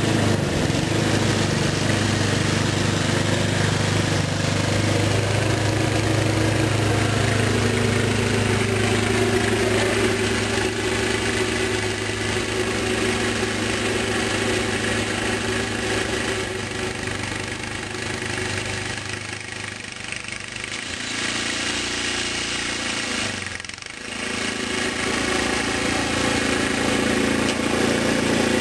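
Walk-behind snow blower's small gasoline engine running steadily under load. It softens for a few seconds about two-thirds of the way in, dips briefly, then comes back up to its earlier level.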